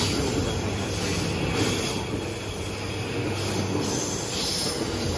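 Yokosuka Line E235 series electric commuter train moving past along the platform, with a steady noise of wheels on the rails and running gear.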